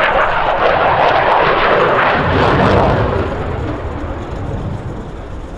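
F-16 Fighting Falcon's single jet engine as the fighter flies past: a loud rush of jet noise that comes in suddenly, then gives way to a deeper rumble and fades after about three seconds.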